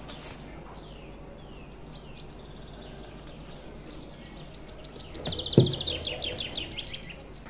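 A small bird singing rapid trills of short high chirps, faint at first and a long strong run in the second half. A single dull thump about five and a half seconds in.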